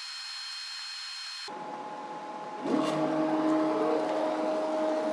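A faint steady high-pitched whine that cuts off abruptly, then, about two and a half seconds in, a steady electric motor hum with two held tones starts up, like a small appliance or machine running.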